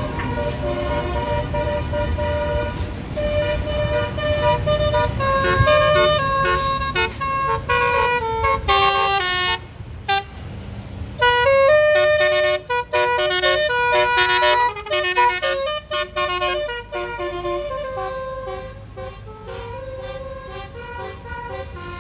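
A bus's multi-note basuri telolet air horn plays a quick melody of stepped notes, with short breaks in the tune near the middle. The bus engine rumbles underneath, strongest in the first half.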